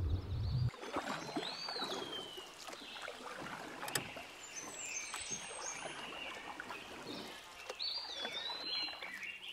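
Water sloshing and dripping with small splashes around a floating platform in a shallow pond. A bird sings a falling whistled phrase twice, about a second and a half in and again near the end.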